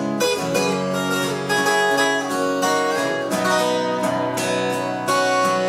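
Acoustic guitar playing an instrumental passage, strummed chords mixed with picked melody notes, with no singing.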